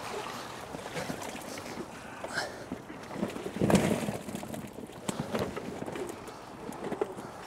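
A wet keepnet being hauled out of the water and its catch of fish tipped into a weigh sling: water sloshing and dripping, with a louder splash about three and a half seconds in and a few sharp taps later.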